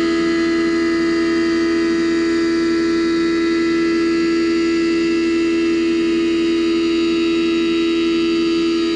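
Haas Mini Mill 2 CNC mill cutting 6 mm steel plate with flood coolant: the spindle and end mill give a loud, steady pitched whine with higher overtones, holding constant through the cut.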